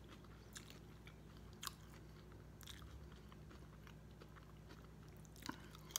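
Faint chewing with a few sharp, short crunches of salt and vinegar potato chips, the loudest about a second and a half in and another near the end.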